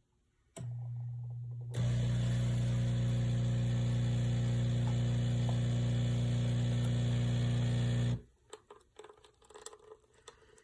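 Café Affetto automatic espresso machine running with a steady low electric buzz that starts faintly, turns louder about two seconds in, holds for about six seconds and then cuts off, followed by a few faint small clicks.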